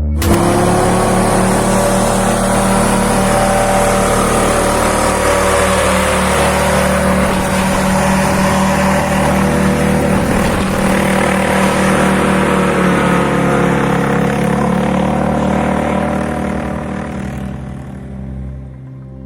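A motor vehicle's engine running with slowly rising and falling revs, fading away over the last few seconds.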